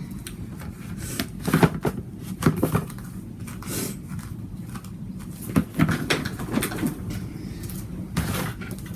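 Glossy slime mixed with foam beads being played with by hand, giving irregular clicks and crackles.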